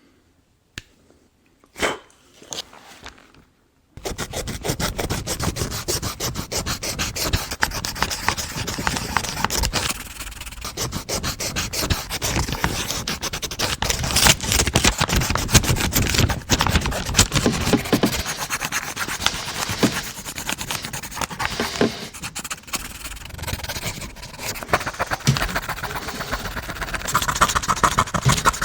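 Harsh, continuous rubbing and scratching, a rapid run of fine scrapes, starting about four seconds in after a near-silent stretch.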